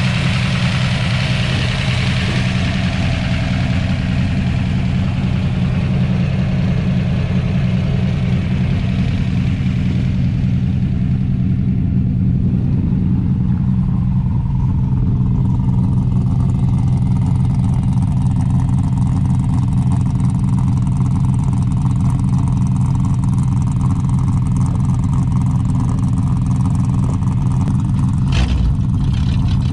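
High-compression, solid-cam 351 Cleveland V8 in a Ford XE sedan idling steadily through its full-length exhaust, with a brief knock near the end.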